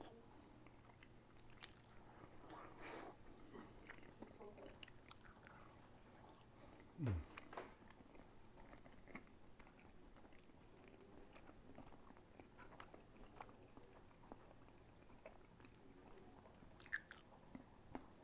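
Faint chewing of a mouthful of tender smoked brisket close to a clip-on microphone. About seven seconds in there is one short low hum that falls in pitch.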